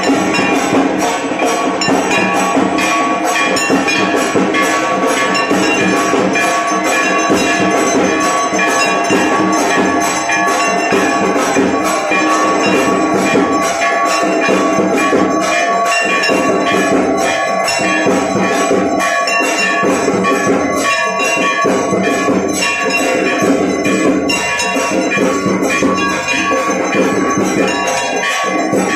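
Temple bells ringing rapidly and without pause for the arati, a dense, loud clangor of many overlapping ringing tones.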